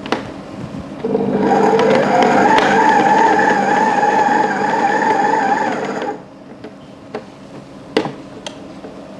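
Mito Pico stand mixer's motor whining steadily as its flat beater turns stiff chocolate-chip cookie dough, starting about a second in and switched off after about five seconds. A few sharp clicks follow near the end.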